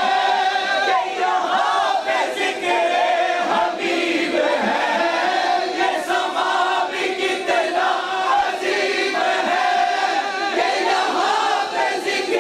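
A group of men singing a naat, an Islamic devotional song praising the Prophet Muhammad, together into microphones, their voices continuous without a break.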